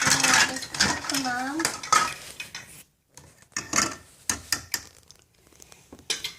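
Play-kitchen pots, pans and utensils clattering and clinking in a string of irregular knocks, as toy food is handled and put into a pot.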